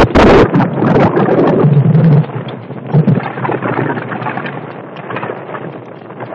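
Strong wind buffeting the microphone in heavy gusts, loudest in the first half-second and easing after about two seconds into a steadier rush.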